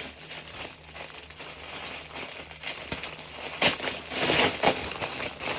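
Rustling and crinkling of a dress and its packaging as it is handled and unfolded, loudest in the second half.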